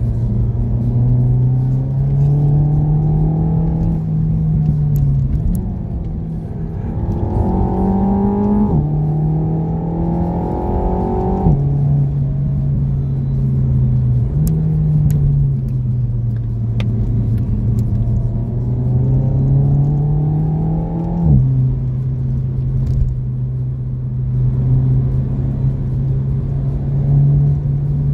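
Renault Mégane RS Trophy's turbocharged four-cylinder heard from inside the cabin, pulling hard on track: the engine note climbs with the revs and drops sharply at each upshift, about three times, with two quick jumps up in pitch at downshifts. A steady low rumble of road and tyre noise runs underneath.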